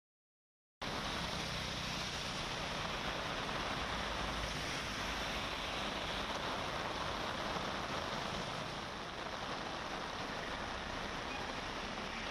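Heavy monsoon rain pouring steadily on a city road, with traffic driving through it on the wet tarmac. It cuts in suddenly under a second in, after silence.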